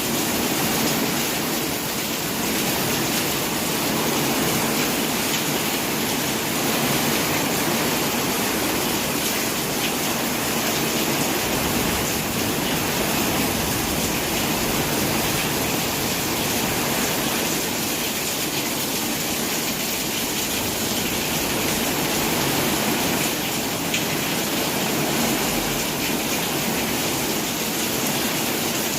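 Steady rain falling, a constant, even hiss of water with no breaks.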